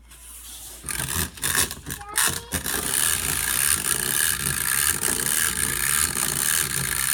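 Clockwork mechanism of a Happy Papa Rooster wind-up toy running, a steady dense whirring and clicking of spring-driven gears that starts about a second in.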